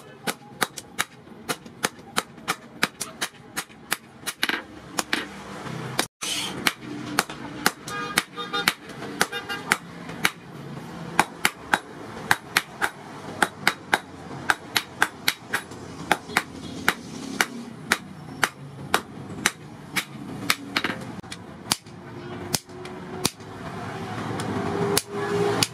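Hammer blows striking a red-hot steel knife blade on a small anvil, in a steady rhythm of about two to three blows a second, as the blade cut from a disc brake is forged to shape.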